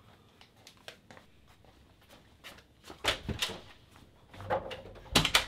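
Scattered knocks and clatters, like things being handled or set down, with a louder cluster about three seconds in and another near the end.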